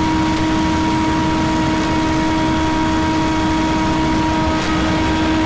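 Scag Windstorm stand-on debris blower running steadily at full speed: a loud, even drone held at one pitch.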